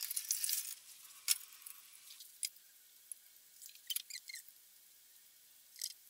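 Water poured from a plastic measuring jug into a plastic tray, a faint splashing hiss over the first two seconds or so. This is followed by a few light plastic clicks and taps as the tray's perforated lid is fitted on.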